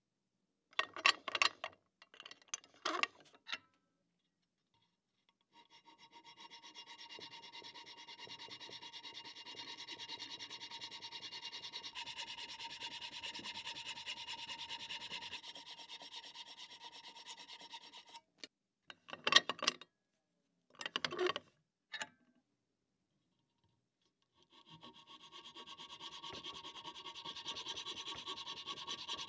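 Hacksaw cutting through a softwood block: a long, even run of rasping strokes from about five seconds in to about eighteen, starting again near the end. A few short, sharp knocks come before the first cut and between the two runs of sawing.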